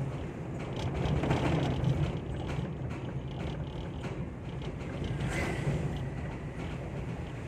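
Funeral bier (keranda) creaking and clicking in the back of a moving ambulance, over the steady low rumble of the vehicle on the road; a louder creak comes about five and a half seconds in.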